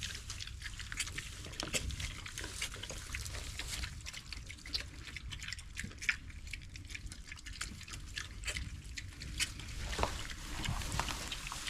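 Idaho Pasture piglets munching and smacking as they eat, with many irregular wet clicks over a steady low rumble.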